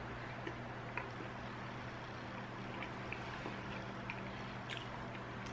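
Faint clicks and taps of a metal spoon working into a pot pie, with chewing, over a steady low electrical hum.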